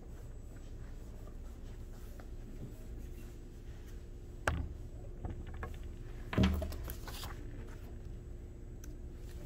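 Quiet classroom room tone with a faint steady hum, broken by two short knocks about two seconds apart, the second one louder.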